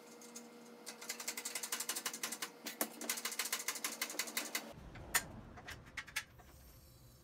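Kendon scissor motorcycle lift being lowered, its steel safety pawl clicking over the notched lock bar in a fast ratcheting run of about ten clicks a second for nearly four seconds, then a few separate clicks as it settles.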